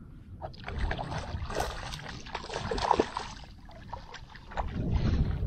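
Hooked snook thrashing at the surface, with a quick run of splashes from about half a second to three and a half seconds in.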